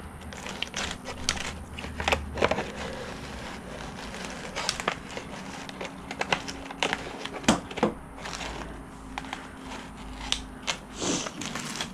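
Kitchen shears snipping through a thin black plastic plant pot: an irregular series of sharp crackling snips and clicks as the blades work around the rim.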